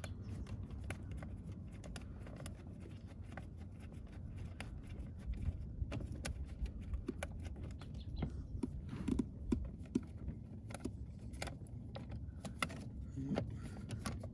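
Light, scattered clicks and taps of a screwdriver working a long screw up through the plastic steering column shroud, coming more often in the second half, over a steady low hum.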